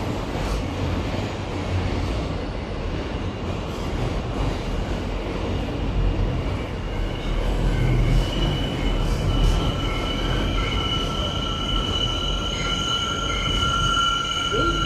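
Subway train running, heard from inside the car: a steady low rumbling noise, joined about halfway through by high, steady squealing tones from the wheels.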